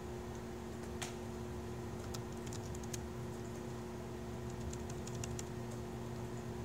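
Laptop keyboard keystrokes: a few scattered taps, then a quick run of keys a little past the middle. A steady low hum runs underneath.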